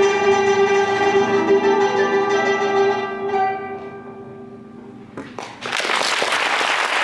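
Violin, pipa and guzheng trio holding a final chord that fades away over about four seconds. A few claps follow, then the audience breaks into applause.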